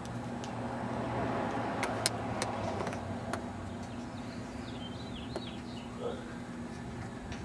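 A vehicle passes on the street, swelling and fading over the first few seconds above a steady low hum, with a few sharp clicks and brief bird chirps about two thirds of the way through.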